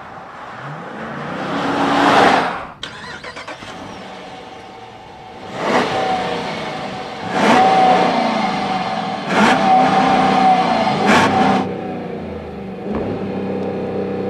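2014 Jeep Grand Cherokee Summit engine and exhaust revved while parked: one long rev that climbs and drops back about two seconds in, then a run of short, sharp throttle blips. It settles back to a steady idle near the end.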